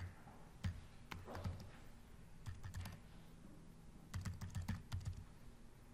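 Typing on a computer keyboard: faint keystrokes in a few short runs, with pauses between them.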